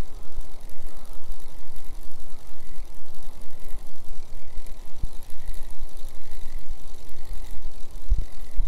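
Wind buffeting the microphone: a gusty low rumble, with a couple of short knocks about five and eight seconds in.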